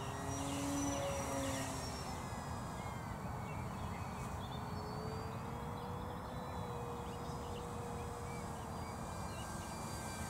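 Durafly Tundra RC plane's electric motor and propeller running overhead: a thin whine whose pitch drifts slowly up and down as the plane flies.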